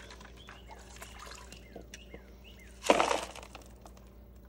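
Pool skimmer basket emptied into a plastic trash can: a short splashing clatter of wet leaves and water about three seconds in.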